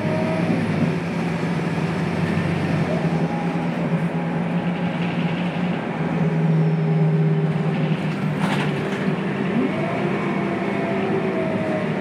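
Scania K280UB bus heard from inside the passenger cabin while driving: the rear-mounted Scania DC9 9-litre inline five-cylinder turbo diesel gives a steady drone, and the ZF Ecomat automatic adds whines that glide up and down in pitch. A brief hiss comes about eight and a half seconds in.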